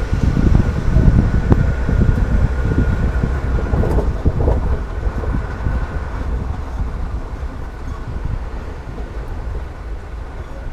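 Ford Ranger FX4 pickup on the move: a steady low rumble of tyres, 2-litre turbo engine and wind, with a few short knocks about a second and a half and four seconds in.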